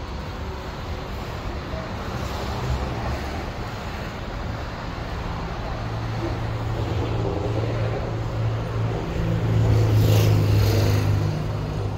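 City street traffic. A vehicle engine's low hum grows louder from about halfway through and is loudest near the end as the vehicle passes close, with a brief hiss at its peak.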